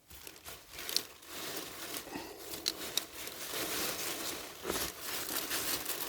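Irregular rustling, crackling and tearing of leafy parsnip foliage and soil as a parsnip is dug up, with scattered small snaps.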